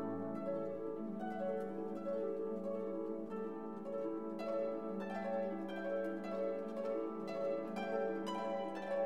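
Background music of plucked strings, light repeated notes with a steady pulse.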